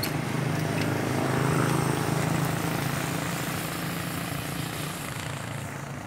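Small motor scooter engine running close by as it pulls in and slows, a steady low hum that is loudest about a second and a half in and then gradually fades.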